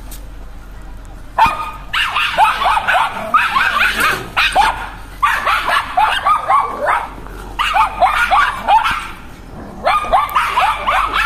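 Several small white spitz dogs barking and yapping aggressively at a cow, in rapid high-pitched bursts. The barking starts about a second and a half in and comes in volleys of a second or two separated by short pauses.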